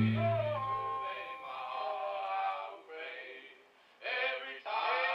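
Nu-folk song recording: the band's last loud chord rings out and fades within the first second, followed by a quiet, muffled passage of singing that breaks off briefly near four seconds in.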